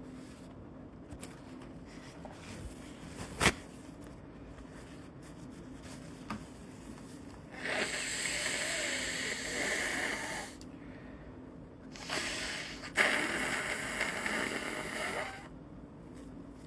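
A person with a cold making two long, noisy congested breaths through the nose, each about three seconds, as part of sick-person ASMR. A sharp click comes shortly before them, and the second breath starts with a sharp peak.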